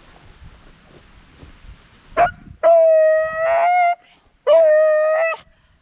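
Beagle howling: a brief sharp call about two seconds in, then two long howls of about a second each, held at a steady pitch.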